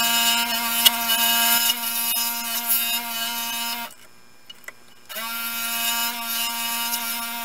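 Scroll saw running, its motor humming steadily and its blade cutting thin wood with a rasping hiss. The sound breaks off a little under four seconds in and starts again about a second later.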